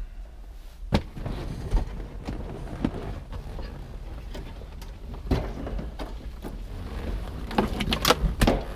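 Irregular knocks, clunks and rattles of an aluminum dashboard carrier, loaded with its wiring harness and HVAC box, being manoeuvred into a car's dash opening, with a burst of louder knocks near the end.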